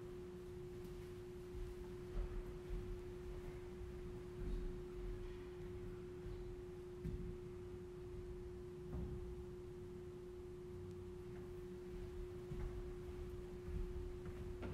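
A single steady pure tone held unchanged throughout, with faint low thuds now and then.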